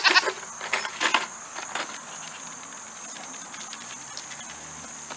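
A goat bleats briefly at the start, then a few quick clinks sound about a second in, over a steady high-pitched insect drone.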